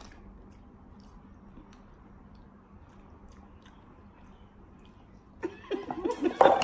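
People quietly chewing jelly beans, with faint scattered mouth clicks. About five seconds in, a loud wordless vocal reaction breaks out, laughing and groaning, as one of them finds the bean tastes bad (a rotten-egg-flavoured Bean Boozled bean).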